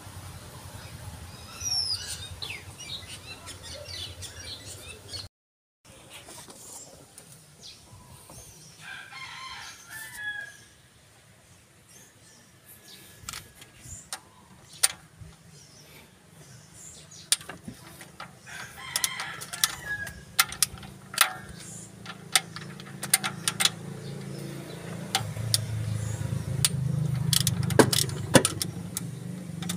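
A rooster crowing a few times, with sharp metallic clicks of a socket ratchet turning bolts on an engine's cylinder head, growing frequent in the second half. A low hum rises near the end.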